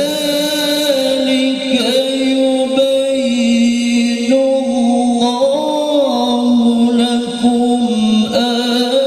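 A male qori reciting the Quran in the melodic tilawah style into a handheld microphone, in a high voice: long held notes that step up and down in pitch with fine wavering ornaments, running on without a break.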